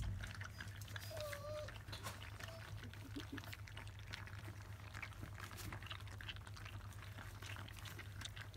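A litter of 25-day-old Labrador Retriever puppies lapping and smacking at their first wet weaning food: many small, wet clicks and licks. A puppy gives a short squeak a little over a second in. A steady low hum runs underneath.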